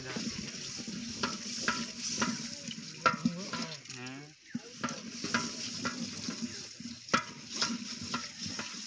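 A wooden stirring stick knocking and scraping in a metal cooking pot of masala over a wood fire, with sizzling as handfuls of raw meat go in. The sharpest knocks come about three and seven seconds in.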